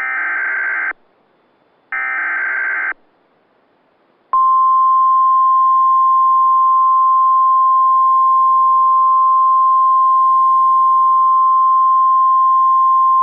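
Weather radio emergency alert: the last two of the three short digital SAME header bursts, each about a second long and a second apart, then about four seconds in the steady single-pitched 1050 Hz warning alarm tone starts and holds.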